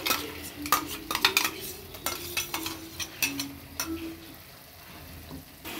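A metal slotted spoon scraping and clinking against a metal kadai as a thick onion-tomato paste is stirred and fried in oil and butter, with a soft sizzle. The paste is being roasted without water until the oil separates. The clinks come quickly for about four seconds, then stop.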